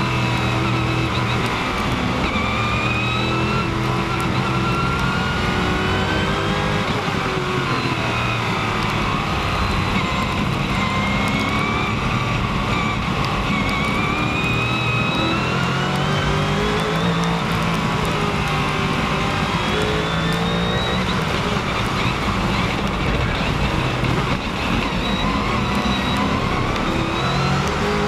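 Stealth B7 race car's V8 engine heard from onboard at racing speed, its pitch climbing through the gears again and again and dropping back at each shift or lift.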